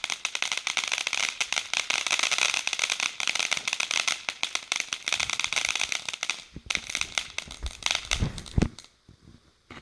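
Consumer firework crackling, a dense rapid stream of small pops that stops about six and a half seconds in. A few low thumps follow near the end.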